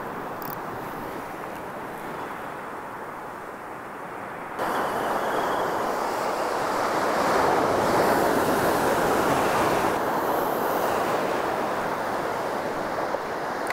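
Pacific surf washing and breaking in shallow water, a steady rush of foaming waves. It jumps suddenly louder about a third of the way in and swells further in the middle.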